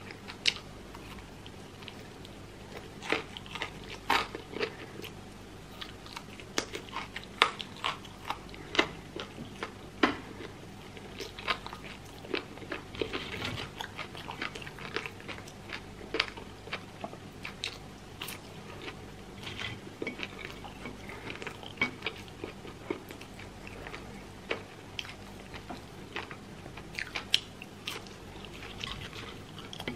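Close-miked eating of crispy fried chicken and French fries: biting and chewing with irregular sharp crunches and crackles.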